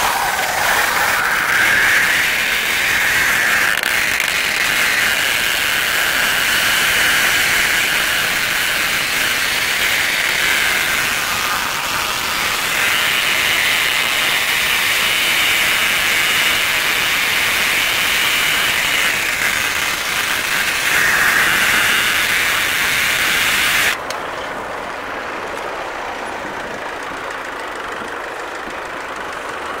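Silage bale wrapper running, its stretch film pulled through the prestretch rollers onto the turning bale: a loud hiss that swells and fades in a cycle of several seconds. It stops abruptly about 24 seconds in, leaving the quieter steady sound of the tractor engine.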